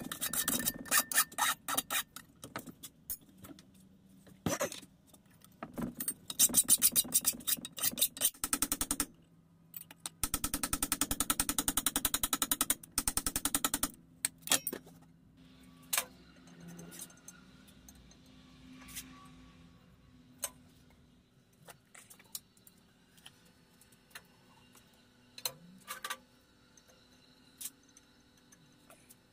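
Hand-tool work on a steel rod clamped in a bench vise: several bursts of fast scraping strokes over the first fourteen seconds. After that come scattered light clicks and knocks of metal pieces being handled.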